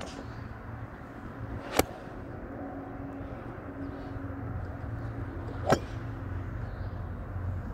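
Two crisp, sharp clicks of golf irons striking balls, about four seconds apart, over a steady low hum.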